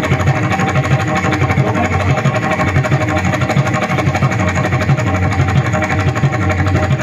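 Mridang played in a fast, even, unbroken run of strokes, imitating the chugging of a running railway train.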